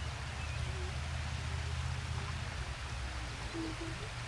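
Steady outdoor rushing noise, an even hiss with a low rumble under it.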